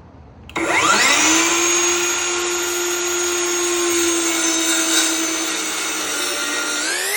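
Electric power tool motor starting with a rising whine as it spins up, running at a steady pitch that sags slightly, then speeding up again near the end.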